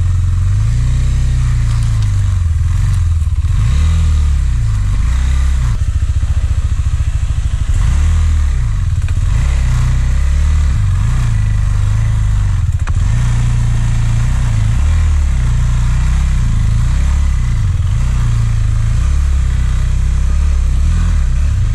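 An off-road motorcycle engine running, its revs rising and falling, under a heavy low rumble.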